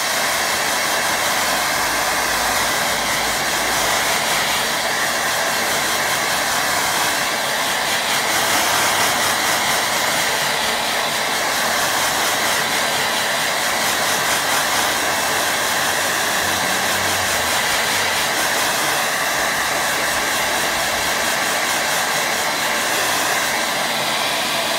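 Turbo Power 2200 handheld hair dryer running steadily at full blow, drying wet watercolour paint on paper.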